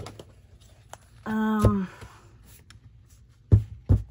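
A short hummed voice sound about a second and a half in, then two or three sharp knocks on a tabletop near the end, with light paper handling between.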